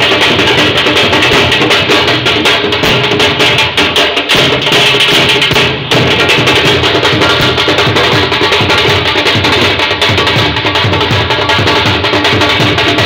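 Several dhols, Punjabi double-headed barrel drums, beaten together with sticks in a fast, loud, driving rhythm, with a hand-held frame drum struck along with them. The drumming dips for a moment about six seconds in.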